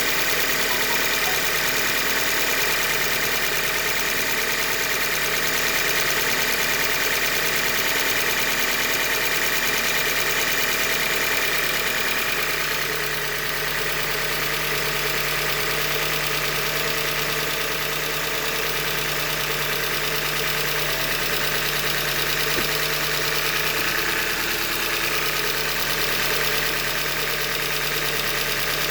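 2015 Hyundai Elantra Limited's four-cylinder engine running steadily with an engine knock, the sign of a failed short block, which the owner puts down to a manufacturing defect.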